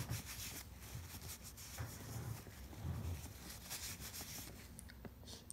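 Paper tissue rubbing and rustling as it wipes peanut butter off a wooden chew stick, in a faint run of short scratchy strokes.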